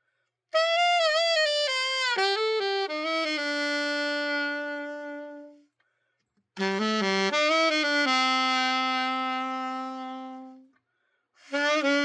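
Yamaha YAS-82Z alto saxophone played solo in three short melodic phrases, each ending on a long held note that fades out, with vibrato on some notes and brief silences between the phrases.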